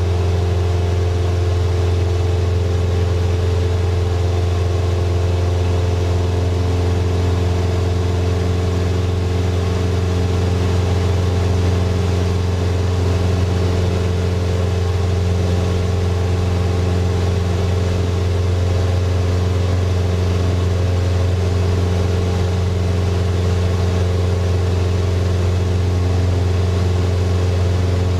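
Single-engine floatplane's piston engine and propeller running steadily in cruise flight, a constant low hum heard from inside the cockpit.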